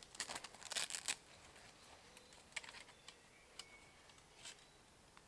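Faint rustling and small clicks of camping gear being handled and packed into a rucksack. The clicks come in a quick cluster in the first second, then a few scattered ones.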